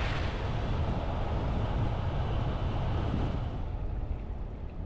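A vehicle driving: a steady low road-and-engine rumble with a rushing, wind-like hiss that fades about three and a half seconds in.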